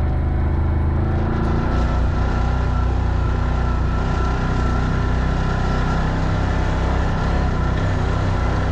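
Side-by-side UTV engines running at a steady pace, a constant low drone with a thin steady whine above it.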